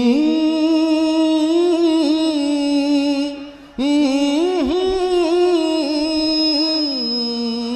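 A man's voice humming and singing two long held notes with small melodic turns, a wordless warm-up alaap over the stage sound system, with the light reverb and echo he has just asked for. There is a short break between the two notes a little over three seconds in.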